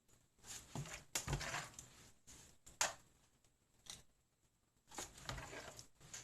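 Soft scraping and rustling handling noises in two spells, with one sharp click about three seconds in.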